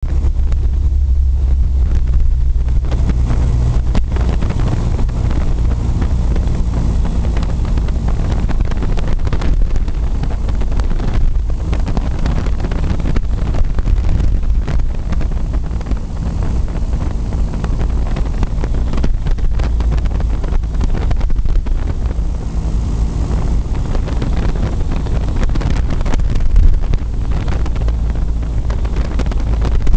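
Aviat Husky A-1C's piston engine and propeller in flight, a steady drone heard inside the cockpit, mixed with wind noise on the microphone.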